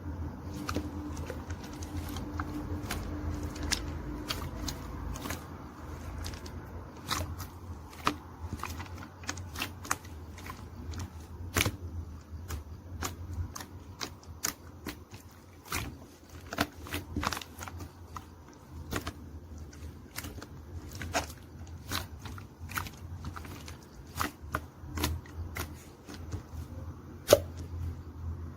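Irregular small clicks and taps, a few a second at uneven spacing, over a low steady hum.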